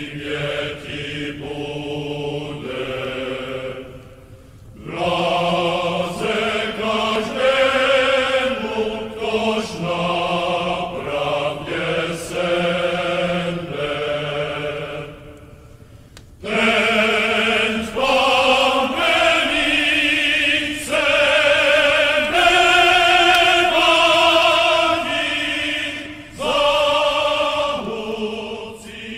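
Choral chant: voices singing slow phrases of long held notes, breaking off briefly about four seconds in and again about sixteen seconds in.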